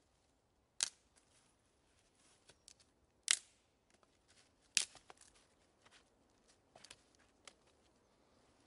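Dead branch being snapped by hand into short lengths: three sharp cracks about one, three and five seconds in, the middle one loudest, then several lighter cracks.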